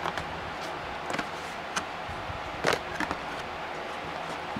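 Scissors cutting through a thin cardboard Funko Pop box: a handful of short, crisp snips and crackles, the loudest a little past halfway, over a steady background hiss.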